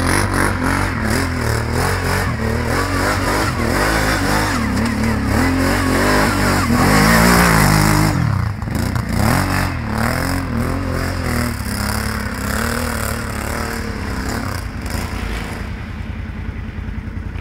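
ATV engine running and being revved, its pitch rising and falling again and again, loudest about seven seconds in, then dropping back and growing fainter over the last few seconds.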